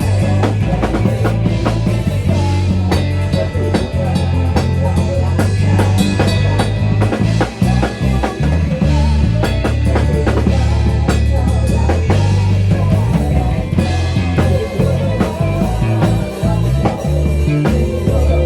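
Full-band rock music with drum kit, bass and guitar playing an instrumental passage with a steady beat.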